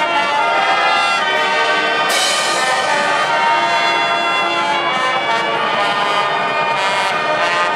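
A marching band in the stands plays held brass chords, with sousaphones underneath. There is a crash about two seconds in.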